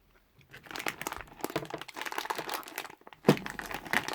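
Sweet packaging handled and crinkling in irregular crackles, with one louder knock a little past three seconds in.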